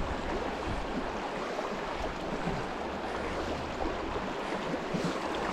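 Steady rush of a small mountain creek's flowing water, with a low rumble of wind on the microphone.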